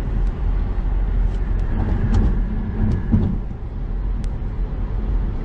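Steady road and wind noise of a car driving at highway speed, heard from inside the car as a constant low rumble and hiss.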